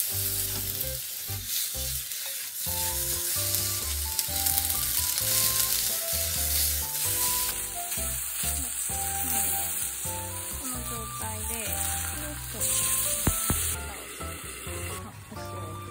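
Lotus root slices sizzling and crackling in hot oil in an iron wok, stirred with a wooden spatula. Near the end the sizzle briefly grows louder and there is a single clank as a lid goes on the pan.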